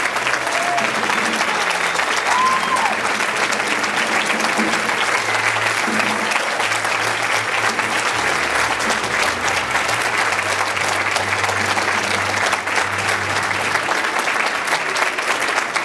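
Audience applauding steadily after a band performance, with a couple of short whoops early on.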